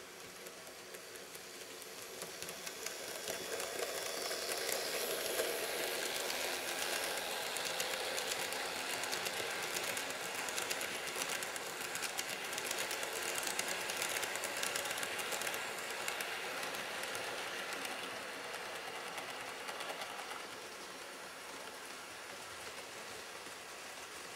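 N-gauge model of the Hokutosei sleeper train running past on the layout's track: a rapid, fine clicking rattle of the wheels on the rails. It grows louder over the first few seconds as the train approaches, stays loud while the coaches pass, and dies away after about twenty seconds.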